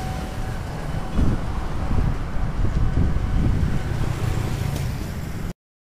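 Low, gusty rumble of wind buffeting the microphone mixed with road traffic. It cuts off abruptly near the end.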